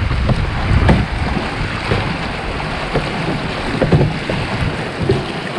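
Rushing whitewater around a canoe running a river rapid, with scattered splashes and knocks of paddle strokes. Wind buffets the microphone with a low rumble in the first second or so.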